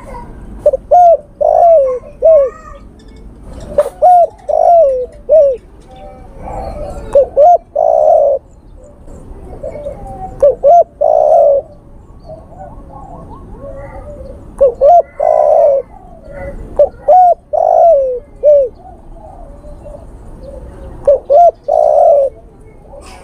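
Male spotted dove cooing its call to draw a female: short phrases of a few coos, repeated every few seconds.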